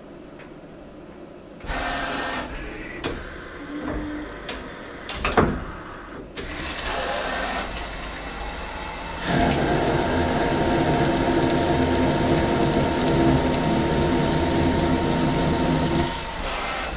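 CNC lathe running a part program. A few sharp clunks come early on as the machine works between moves. From about nine seconds in, a loud, steady whine of the spindle and cut holds until near the end, then drops away.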